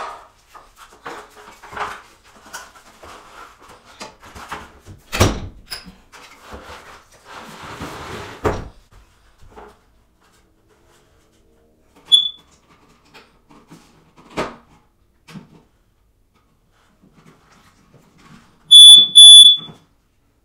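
Hardwired smoke alarm giving one short high chirp about twelve seconds in, its low-battery warning, after a stretch of knocks and rustling from handling. Near the end it sounds two loud beeps, a warning set off as the unit is turned to pull it off its mount.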